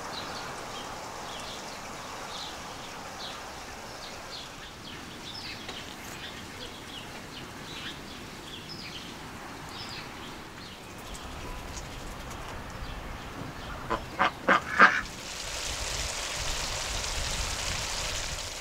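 A duck quacking in a quick run of four or five loud calls, over small birds chirping; a steady hiss comes in near the end.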